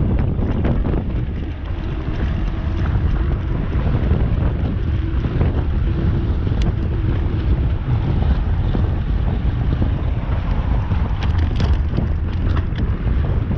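Strong wind buffeting the microphone: a loud, steady low rumble with no let-up, and a few faint ticks near the end.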